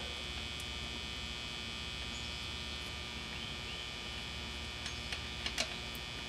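Steady electrical hum, with a few faint short clicks about five seconds in.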